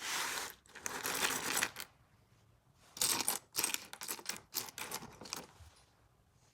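Small plastic LEGO pieces clattering and clicking in several short bursts, with quiet gaps in between.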